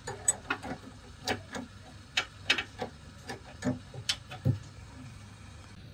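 Metal spanner clicking in quick, uneven strokes as it turns the nut on a Haval H6 front stabilizer end link, its ball stud held with an Allen key. The clicks stop about four and a half seconds in.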